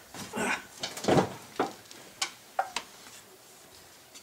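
Work noise in a truck's engine bay: a few irregular knocks and light clicks from a person shifting position and handling parts, the loudest about a second in, then a few sharper ticks before it goes quieter.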